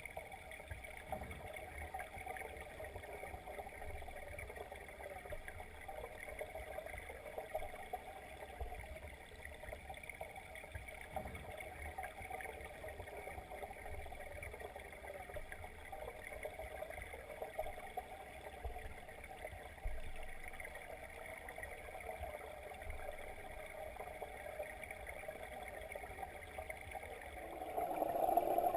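Muffled rush of stream water heard underwater through the camera's housing, steady and faint, growing louder near the end.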